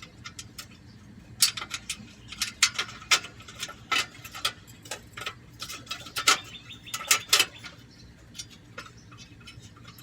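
Irregular metallic clicks and clinks of the thin sheet-metal rear catalytic converter heat shields on a 2006 Honda Odyssey, knocking against each other and the converter as they are held in place and a bolt is started. The clicks come in scattered clusters, several of them sharp and loud.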